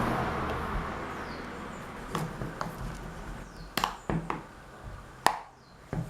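A series of about seven sharp plastic clicks and taps, the loudest about five seconds in, as a tablet's back case is worked loose with a pry tool. A hiss dies away over the first couple of seconds.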